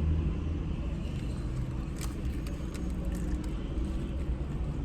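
Low, steady rumble of a car idling, heard from inside the cabin, with a few faint clicks about two and three seconds in.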